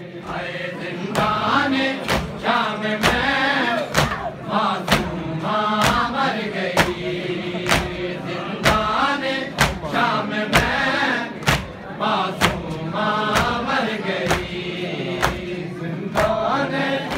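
A group of men chanting a noha, a Shia mourning lament, in unison. Loud, sharp open-hand slaps on their chests (matam) land in a steady beat about once a second.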